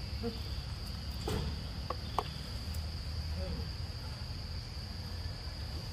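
Insects keeping up a steady high-pitched drone over a low rumble, with a few short faint clicks about two seconds in.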